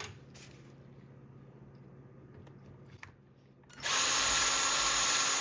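Power drill running steadily, drilling a hole through a belt buckle, for about a second and a half near the end. It follows a quiet stretch with a light click or two.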